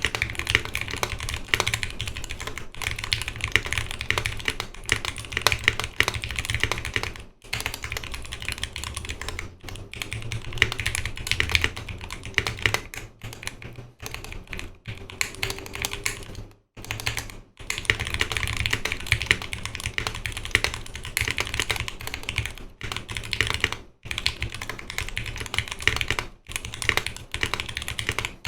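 Continuous fast typing on a custom mechanical keyboard: lubed Zealio 78g V2 tactile switches in a 5 mm polycarbonate plate under GMK keycaps, a steady stream of keystrokes with a few brief pauses between bursts.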